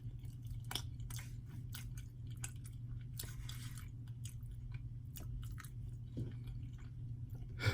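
Close-miked chewing with small wet mouth clicks and smacks, irregular throughout, over a steady low hum.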